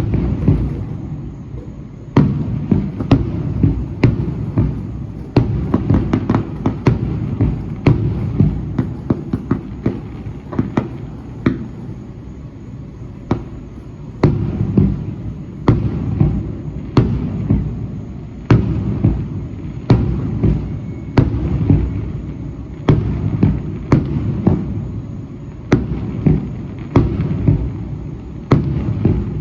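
Fireworks display: a continuous run of sharp bangs, about one or two a second, over a low rumbling crackle.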